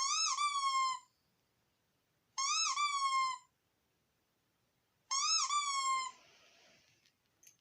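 Squeaky dog toy squeaking three times, about two and a half seconds apart, each a drawn-out squeak of about a second that dips and then rises in pitch.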